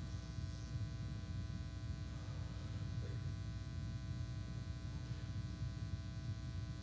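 Steady electrical hum and buzz, made of several fixed tones, coming through the microphone and sound system while nobody speaks.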